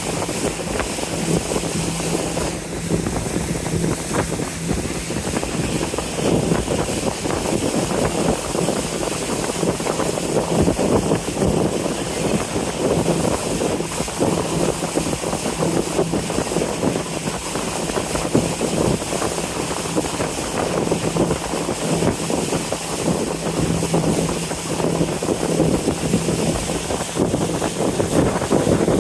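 A riverboat under way: its engine runs with a steady low hum over a constant rush of water and wind on the microphone.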